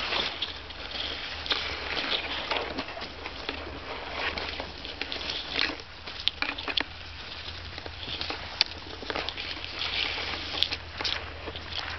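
Tall grass rustling and brushing close to the microphone, with many scattered sharp clicks and crackles as stems are pushed about, over a faint low steady hum.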